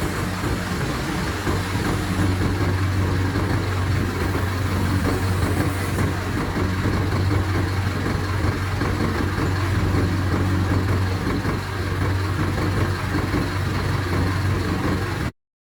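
A tour coach's diesel engine idling steadily with a deep, even hum. The sound cuts out abruptly near the end.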